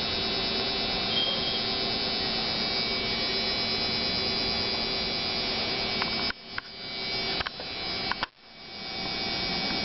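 Steady electrical hum and buzz made of several fixed tones. Between about six and eight and a half seconds in come several sharp clicks, and twice after a click the sound drops away sharply and then swells back up.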